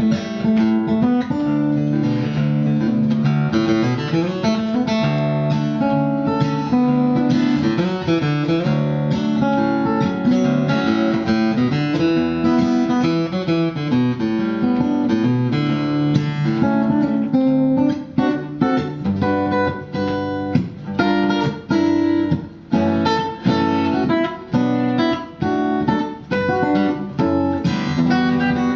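Solo acoustic guitar played fingerstyle, a flowing run of melody and bass notes. From about two-thirds of the way in it changes to short, separated picked notes with brief gaps between them.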